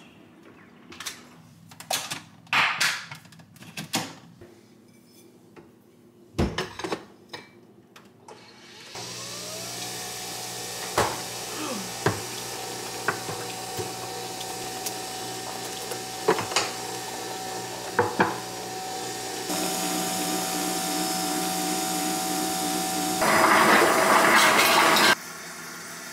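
Single-serve pod coffee maker brewing, after some scattered knocks and clicks. About nine seconds in its pump starts with a rising whine and settles into a steady hum, with occasional clicks over it. It gets louder about two-thirds of the way through and ends in a loud spluttering hiss that cuts off suddenly.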